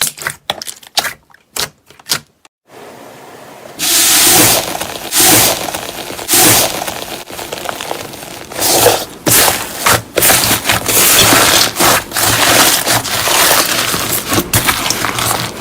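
Slime being pressed and squeezed by hand: a run of sharp clicks and pops, then from about four seconds in a loud, dense crackling and squishing that swells and dips repeatedly.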